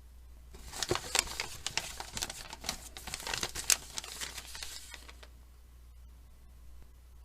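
A sheet of paper being crumpled by hand: dense crackling with many sharp crackles, starting about half a second in and dying away at about five seconds.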